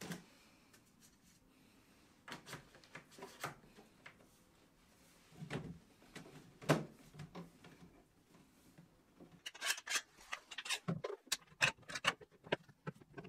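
Faint handling noise as a wooden desktop panel is shifted and lined up by hand: scattered knocks and rubs. Near the end comes a quick run of clicks and knocks as a metal bar clamp is fitted and tightened on the panel's edge.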